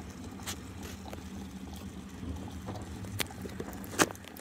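A steady low hum with a few sharp clicks and taps, the loudest about four seconds in.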